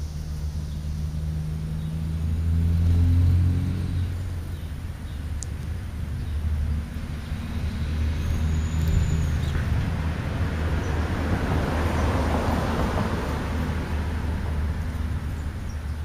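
Road traffic: a steady low engine hum, with a vehicle passing whose tyre noise swells and fades about three quarters of the way through.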